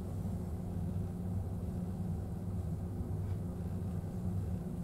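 Steady low drone of the car ferry Akashia's engines under way at sea, with a faint steady hum above it.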